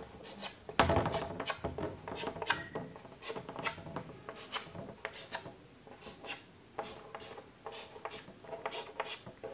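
Chalk on a blackboard: many short, quick strokes scraping and tapping as arrowheads are drawn, the loudest about a second in.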